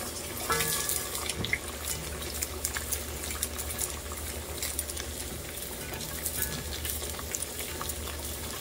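Hot oil sizzling and crackling around an empanada shallow-frying in a pot, a steady hiss dotted with many small pops.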